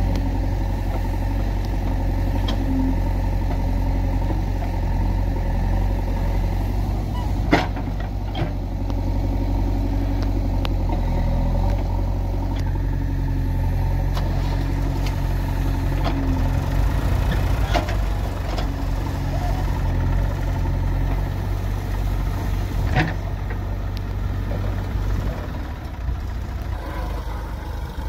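Old JCB 3DX backhoe loader's diesel engine running steadily as the backhoe digs soil, with a few sharp knocks from the working bucket and arm. The engine note eases near the end.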